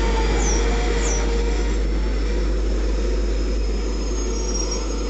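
Empty container flat wagons of a freight train rolling slowly past: a steady rumble and rattle of wheels on the rails with a faint high squeal, the train running slow on a red signal.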